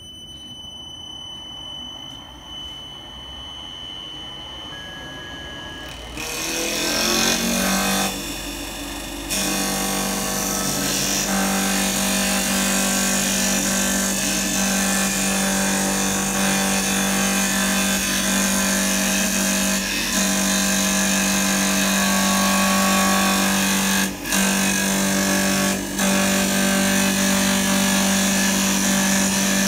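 CNC wood turning lathe spinning a wooden blank while its double blades cut it into a turned spindle. A faint high whine comes first; about six seconds in, the machine's sound rises in pitch and loudness and settles into a steady loud hum with the rasp of blades cutting wood. Two short dips come near the end.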